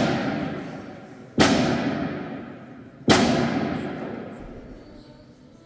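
Slow, heavy hammer blows, as in nailing to the cross, each one ringing out long in the hall. The strikes come about a second and a half apart: one just as the sound begins, then two more.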